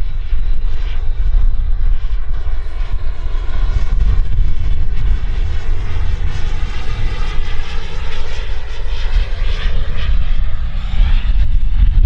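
Model jet turbine (KingTech K86) of a 1/8-scale RC F-16 in flight: a high whine that rises and falls in pitch as the jet passes and throttles, over a heavy low rumble.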